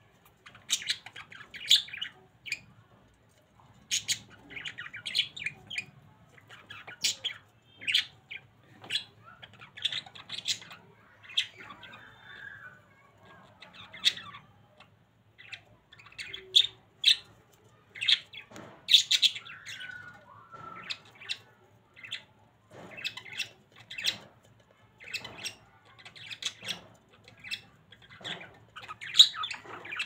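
Budgerigars chirping and squawking in short, sharp calls, about one a second with brief pauses between clusters.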